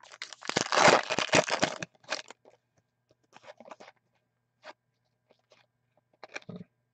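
Foil wrapper of a hockey card pack crinkling loudly for about a second and a half, followed by faint ticks and slides of trading cards being flipped through by hand.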